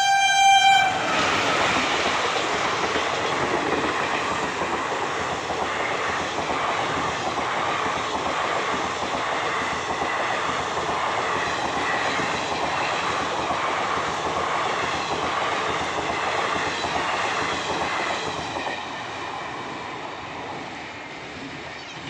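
Horn of an Indian Railways WAP electric locomotive sounding one steady note that cuts off about a second in. The express coaches then pass at speed, a loud steady rush of running noise that fades near the end.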